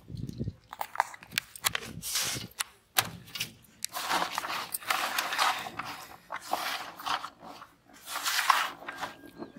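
Grainy fish bait being poured into a plastic tub and then worked by hand: gritty scraping and rustling in repeated strokes, with sharp crunchy clicks early on and longer scrapes from about four seconds in.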